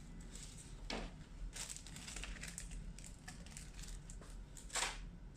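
Faint rustling and crinkling of packaging being handled, with a sharper click about a second in and another near the end.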